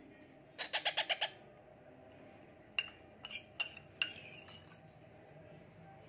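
Indian ringneck parakeet chick gives a quick run of about six begging calls about half a second in. A few sharp clinks of the feeding spoon against the steel bowl follow, spread over the next couple of seconds.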